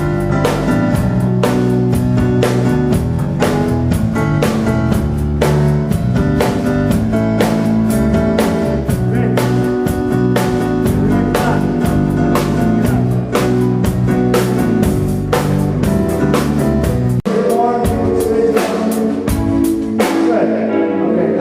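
Rock band playing together, with drum kit, bass, guitar and keys on a steady beat. About 17 seconds in the sound changes abruptly as the bass thins out, and near the end the drums and cymbals drop away.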